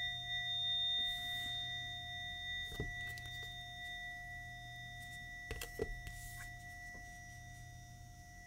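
A struck metal singing bowl ringing out after a single strike, its clear tones slowly fading; the highest tone dies away within the first few seconds while the lower ones hang on throughout. A few soft knocks of handling come in partway through.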